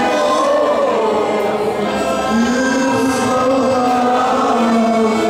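Men singing together in long held notes, led by a man on a microphone, with an accordion playing along.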